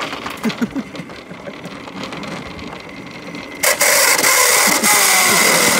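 Red plastic shopping cart rolling over asphalt with its wheels rattling; about three and a half seconds in, a sudden loud grinding scrape with a steady squeal for about two seconds, then it cuts off. It is a wheel seizing and dragging, which the riders take for the cart's anti-theft wheel lock engaging once it is taken too far from the store.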